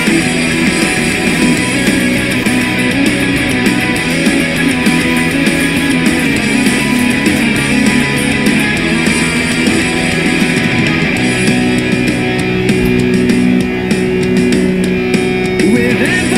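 Loud punk rock music with driving guitar, playing steadily.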